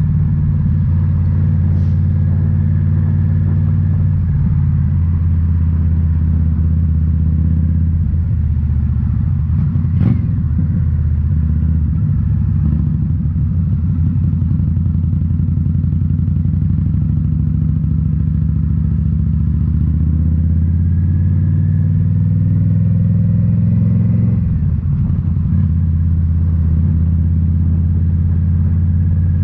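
2018 Indian Scout Bobber's V-twin engine running through Rinehart slip-on mufflers while riding, a steady low exhaust note whose pitch shifts a few times as the revs change. A single sharp click comes about ten seconds in.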